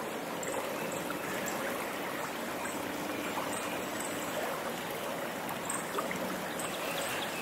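Shallow creek water running and trickling steadily.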